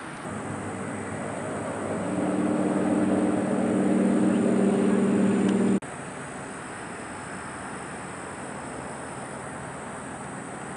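An engine's steady humming drone growing louder over a few seconds, then cut off abruptly about six seconds in, leaving a quieter steady outdoor background hiss.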